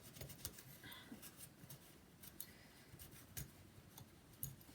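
Faint, irregular scratching and rubbing: a cotton swab scrubbing old thermal paste off a laptop heatsink, in small quick strokes.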